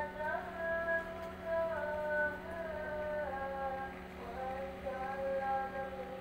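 Background music: a female voice singing a melody of held, gliding notes, over a steady low hum.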